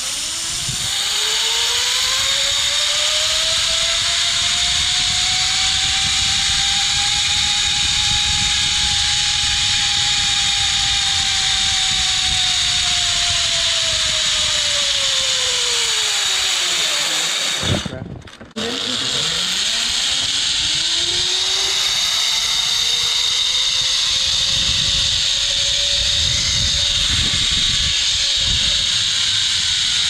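Zipline trolley pulleys rolling along a steel cable, their whine rising in pitch as the rider gathers speed and falling as the rider slows, twice over, with a short break about two-thirds of the way through. A steady rush of air runs under it throughout.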